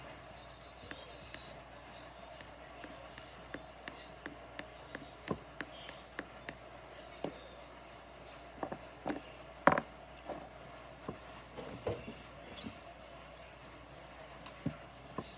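Light, irregular clicks and taps of small hard objects being handled, with one louder knock about ten seconds in.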